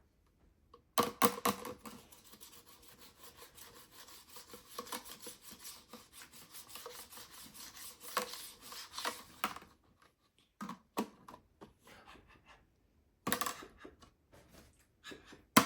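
A tool scraping and chipping at a block of ice in a rapid rasping run that stops just before ten seconds in, followed by a few separate knocks on the ice.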